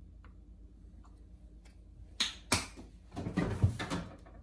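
Two sharp knocks about a third of a second apart, then about a second of clattering as kitchen things are handled.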